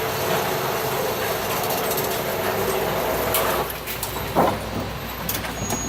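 Motorized range target carrier running along its track with a steady mechanical rumble, stopping about three and a half seconds in, followed by a few light clicks and knocks.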